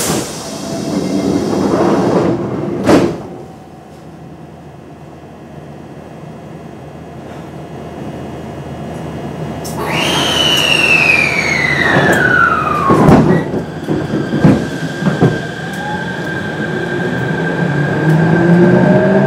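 Train doors sliding shut with a knock about three seconds in. Later comes a falling whine, and near the end the rising whine of a Kintetsu 7000 series' Mitsubishi IGBT-VVVF traction inverter and motors as the train starts to pull away.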